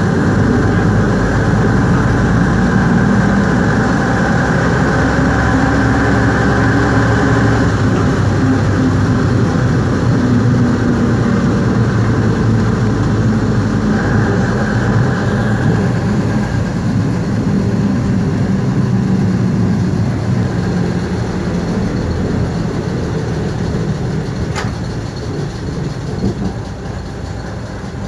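Skoda 706RT six-cylinder diesel of a 1977 Jelcz 272MEX city bus running under way, heard from inside the passenger cabin, its note rising and falling with road speed. A sharp click about three-quarters of the way through, and the engine grows quieter near the end.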